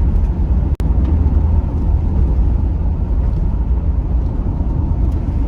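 Steady low rumble of road and engine noise heard from inside a car driving at speed, with a momentary dropout just under a second in.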